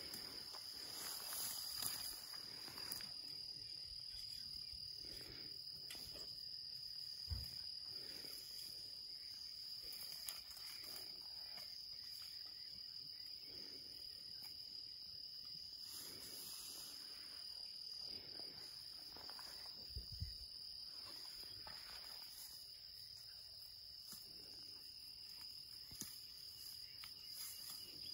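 Steady evening insect chorus, a constant high-pitched drone, with soft rustling of long grass and a couple of faint low bumps.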